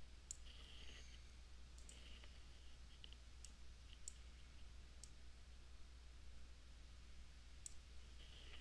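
Near silence: a steady low hum with a few faint, scattered computer mouse clicks.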